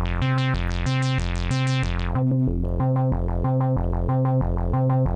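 Sequenced software modular synthesizer patch playing about three notes a second, a bass line over a repeating pattern. A pulse added to the filter cutoff through the attenuverter snaps the filter open on each note and lets it fall back, giving a 'yow, yow, yow' sweep. The sweep is brightest in the first two seconds, then duller.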